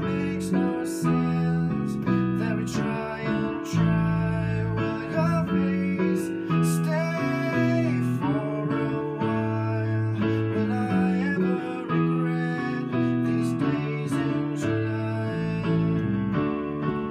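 Live unplugged pop song: a man singing while playing an electric keyboard, with an electric bass guitar playing the bass line, heard through the camera's own microphone in a small studio room.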